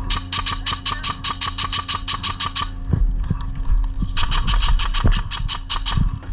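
Airsoft gun firing on full auto in two long bursts of about ten shots a second, with a pause of a second or so between them.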